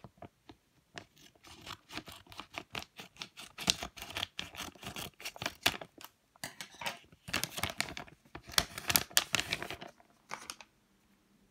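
Crinkly plastic squishy packet crackling and rustling in the hands as it is worked open, in several dense bursts that stop shortly before the end.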